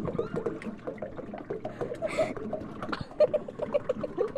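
Bearded dragon paddling and thrashing in shallow water in a stainless steel sink: a run of small, irregular splashes and slaps of water against the metal. A person's voice comes in short repeated bursts about three seconds in.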